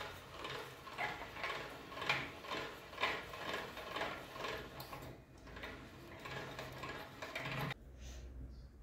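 Hand-cranked Imperia pasta machine turning, its cutter rollers slicing a sheet of dough into thin noodle strands. The gears give a rhythmic clicking rattle about twice a second, which stops near the end when the cranking ends.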